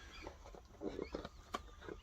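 Faint handling of board-game components: a few small clicks and knocks, the sharpest about a second and a half in.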